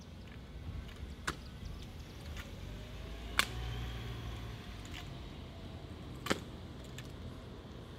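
A drill rifle being spun and tossed, giving three sharp knocks as it is caught or slapped in gloved hands, the loudest about three and a half seconds in, with a few fainter clicks. Under them runs a low hum of traffic that swells as a vehicle passes near the middle.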